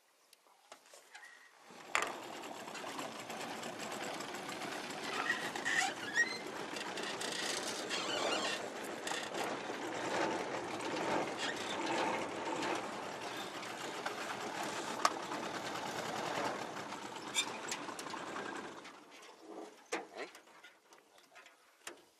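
Fishing reel running steadily for about seventeen seconds, starting abruptly about two seconds in and stopping near the end, as a hooked pirarara (redtail catfish) is fought on a taut line.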